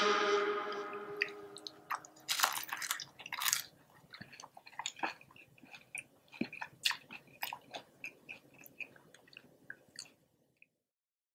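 Person biting into a crispy fried Filipino spring roll (lumpiang togue): two loud crunches two to three and a half seconds in, then steady crunchy chewing that stops near the end. Background music fades out in the first second.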